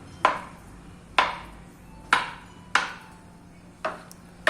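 Knife chopping banana into small pieces: about six separate sharp knocks of the blade, spaced unevenly, roughly one a second.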